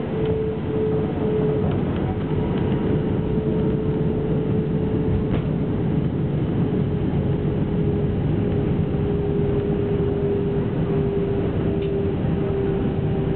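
Airbus A319-132 cabin noise on the runway after landing: a steady rumble, with the tone of its IAE V2500 engines sliding slowly lower in pitch.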